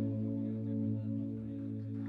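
Amplified electric guitar and band holding a final chord that rings out as a steady drone of several notes, with no drums; the lowest note dies away near the end.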